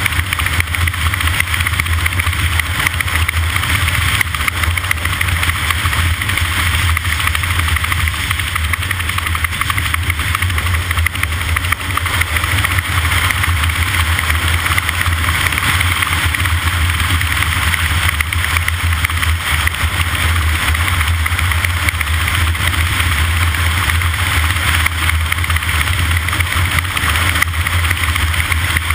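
An engine running steadily at a constant speed, with a low drone and a steady hiss over it.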